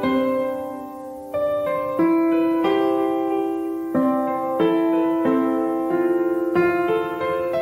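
Background piano music: soft notes and chords struck about once a second, each fading before the next.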